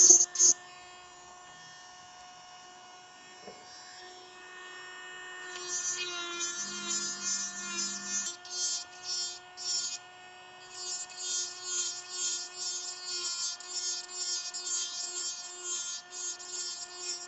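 Handheld micromotor rotary tool running with a steady whine while its conical burr grinds the acetate nose pads of a spectacle frame, heard as short rasping passes. After a brief burst at the start the motor runs on its own for about five seconds, then the grinding resumes in quick repeated strokes, shaping the pad angle.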